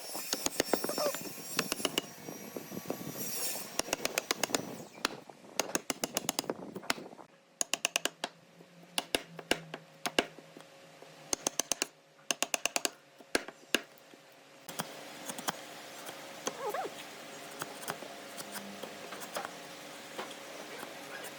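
Woodworking hand work: clusters of sharp taps and knocks on wood, several a second, with short pauses between them, and a faint steady hum joining in about two-thirds of the way through.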